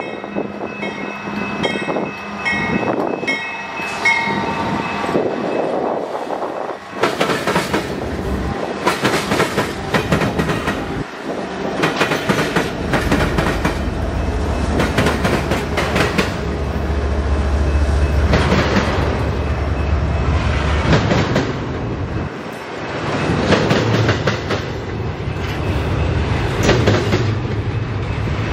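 Union Pacific freight train passing a grade crossing. The crossing bell rings at the start, then the diesel locomotives run past close by with a low rumble, followed by the clickety-clack of double-stack container cars over the rails.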